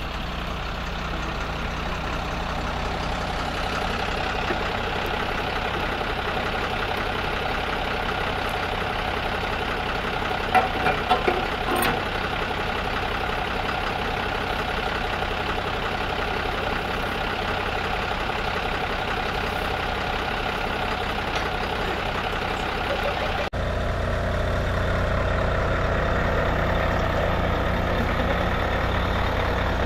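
A fire truck's engine idling steadily, with a few sharp knocks about eleven seconds in. Near the end it cuts abruptly to a louder, deeper engine hum.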